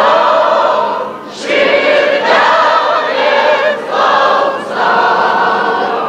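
A choir singing, with vibrato, in held phrases of a second or so separated by short breaks.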